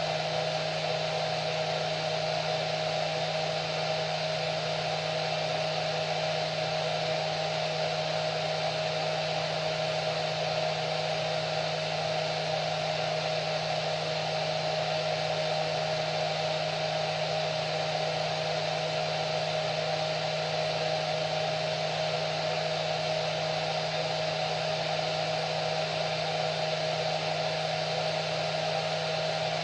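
Hair dryer running steadily: an even rush of air with a constant low hum and a higher steady tone, unchanging throughout.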